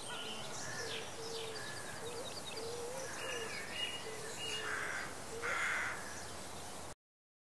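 Birds chirping, over a low cooing that repeats in short phrases. The sound cuts off abruptly about seven seconds in.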